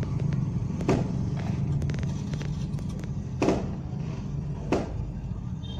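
Steady low engine and road rumble inside a moving car. Faint ticks sound over the first couple of seconds, and three short, sharp sounds come about a second in, at about three and a half seconds and near five seconds.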